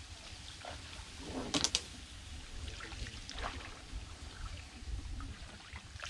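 Small wooden boat being moved along with a long oar or pole: soft water splashes and drips, with a louder splash-and-rustle cluster about a second and a half in. A low rumble runs underneath.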